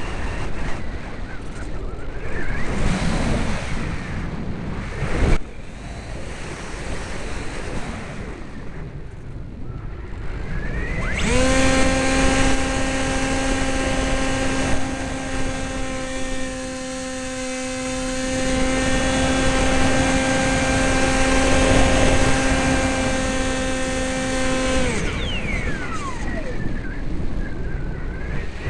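Wind rushing, then about eleven seconds in the Sky Surfer RC glider's electric motor and propeller spin up to a steady whine. The motor runs for about fourteen seconds and winds down with a falling pitch, leaving the wind noise again.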